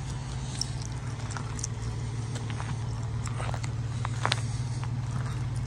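Pickup truck engine idling: a steady low hum with a fast even pulse, with a few faint clicks over it.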